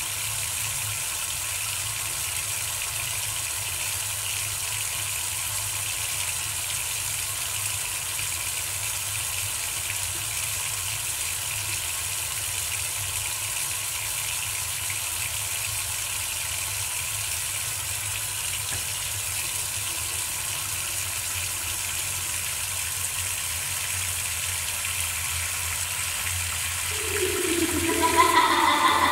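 Water running steadily from a tap. Near the end, a loud, wavering pitched sound comes in over it.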